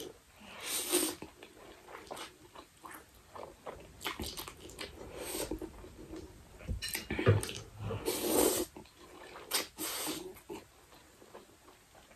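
A person slurping instant ramen noodles and chewing them with wet mouth noises. There are loud slurps about a second in and again around eight seconds in, with smaller clicks and smacks between.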